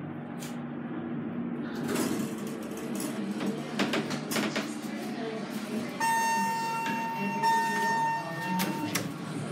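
Alex & Sons traction elevator's car doors and door operator in motion as the door-close button takes effect. From about six seconds in, a steady electronic tone sounds for about three seconds, broken once.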